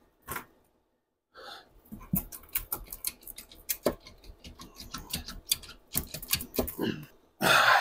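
Irregular clicks and light metallic knocks as the cylinder head of a first-generation Yamaha R1 engine is worked loose and lifted off its studs, with a louder burst of noise just before the end.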